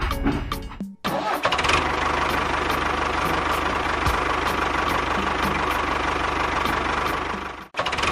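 A motor running steadily with a steady whine, starting abruptly about a second in and cutting off abruptly near the end. Before it, about a second of music.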